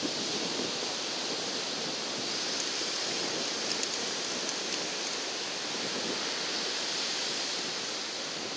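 Steady rush of ocean surf on the beach, an even hiss with no breaks, with a few faint clicks.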